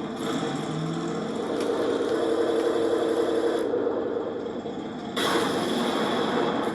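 Simulated tank engine sound played by a 1:16 RC tank's BEIER SFR-1-D sound unit, a steady drone. Two stretches of added hiss lie over it: the first starts at the beginning and lasts about three and a half seconds, the second comes about five seconds in and lasts about a second and a half.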